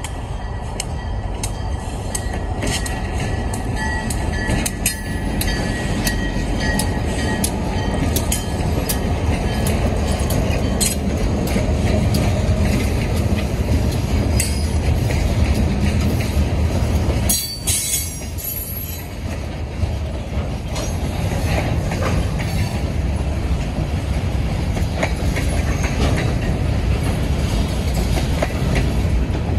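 Freight train passing close by at a grade crossing: EMD diesel road-switcher locomotives rumble past, then loaded hopper cars roll by with a steady heavy rumble and repeated clacks of wheels over rail joints.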